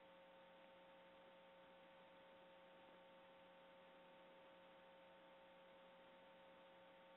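Near silence: a faint steady hum of a few constant tones over low hiss, with nothing else happening.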